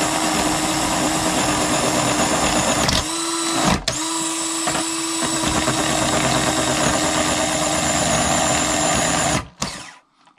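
Mini RC crawler's electric motor and gearbox whining at a steady pitch while its saw-blade wheels grind into a small wooden log. The whine cuts out briefly about three seconds in and again about a second later, then stops shortly before the end.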